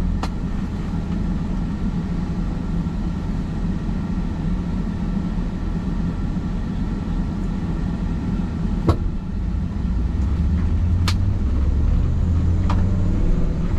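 Steady low rumble of a motor vehicle, with a few sharp clicks, the rumble getting heavier about ten seconds in.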